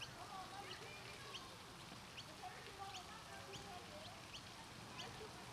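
Outdoor park ambience: a bird gives short high chirps, about three a second, over a steady haze of background noise and faint, distant wavering voices or calls.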